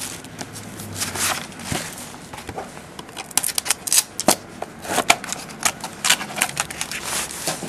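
Trading card packaging and cards being handled by hand, making irregular crinkles, clicks and rustles that get busier about three seconds in.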